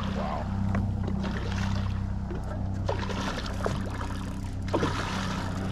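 A hooked black drum splashing and thrashing at the surface beside the boat, in several separate spells, the last and strongest near the end. Under it runs the steady low hum of the boat's motor.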